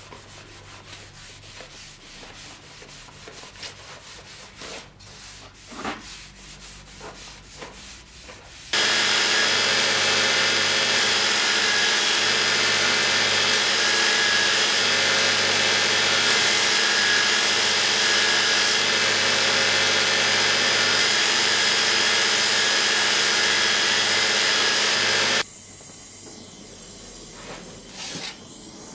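Light rubbing and handling noises, then a belt grinder runs loud and steady for about sixteen seconds. A steel sword blade is pressed against the belt, grinding the black scale off the hardened steel, and the grinder cuts out a few seconds before the end.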